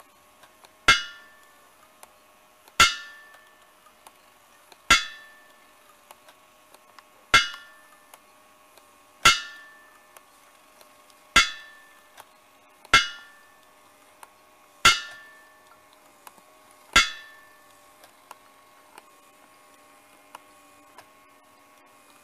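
Hammer ringing on an anvil, nine evenly spaced clangs about two seconds apart that stop about three-quarters of the way through. A faint steady hum runs underneath, with a few light ticks after the strikes end.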